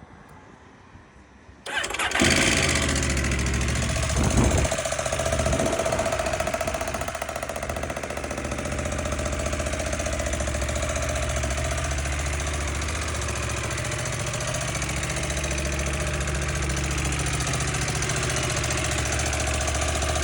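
2021 KTM 890 Adventure R's parallel-twin engine starting about two seconds in, surging briefly, then idling steadily with its bad valve noise: valve shims fell out after a valve adjustment service and are floating loose in the head, damaging it.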